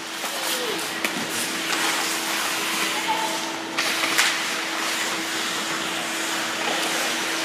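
Ice hockey rink sounds: skate blades scraping and carving on the ice and sticks on the puck, over a steady hum. A louder, longer scrape comes about four seconds in.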